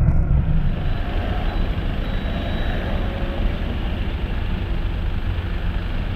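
Off-road 4x4 vehicle's engine running as it drives the dirt trial course, heard with a heavy, uneven low rumble.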